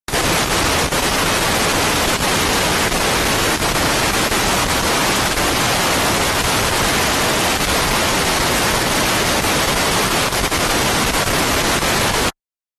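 Loud, even hiss of static across all pitches that starts abruptly and cuts off abruptly after about twelve seconds, with dead silence on either side: an audio signal fault in the feed rather than a sound in the room.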